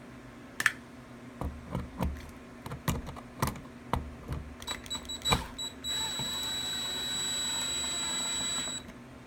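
Clicks and knocks of the new three-way switch being handled and pushed into its metal wall box, then a power driver's small motor runs with a steady high whine for about three seconds, driving in the switch's mounting screws, and stops just before the end.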